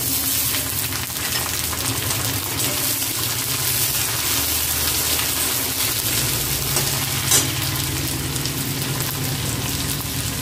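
Chopped carrots and yardlong beans sizzling in hot oil and ghee in a kadai, stirred with a spatula. There is a single sharp click about seven seconds in.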